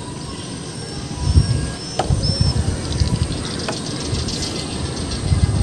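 Wind buffeting the microphone in uneven gusts, with a few short high-pitched chirps above it.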